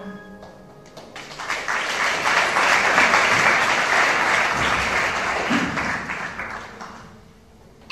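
Audience applauding: the clapping swells about a second in, holds for several seconds and then dies away near the end.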